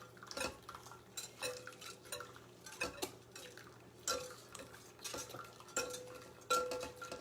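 Eggnog base being mixed by hand in a bowl: a utensil clinking and scraping against the bowl in an irregular rhythm, some strikes leaving a short ring. The eggs are being tempered with hot milk, which must be mixed hard so they don't curdle.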